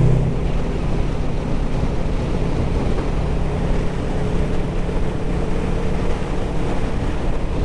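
Wind rushing over the helmet microphone on a moving motorcycle, with the Honda VFR800F's V4 engine running steadily underneath.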